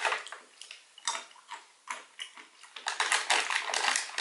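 Crisp clicks and crackles as a nut-and-raisin trail mix is handled and eaten: scattered at first, then a dense run of them in the last second or so.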